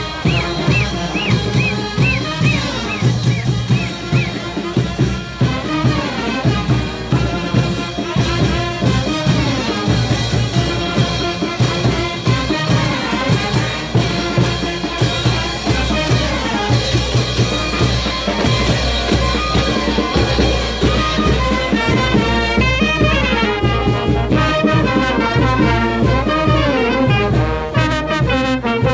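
Brass band of trumpets, trombones, sousaphones, saxophone and bass drum playing a lively dance tune with a steady beat.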